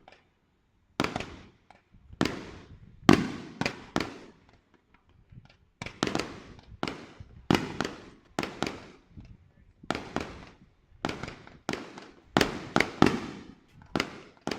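Fireworks going off in a rapid, irregular string of sharp bangs, about two a second, each trailing off in an echo, with a short lull around the middle.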